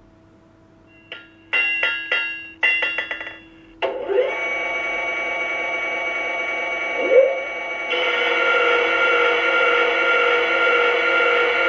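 Forge-model sound module playing a quick series of ringing hammer-on-anvil clangs. After about four seconds it gives way to steady sustained music-like tones, which get louder at about eight seconds.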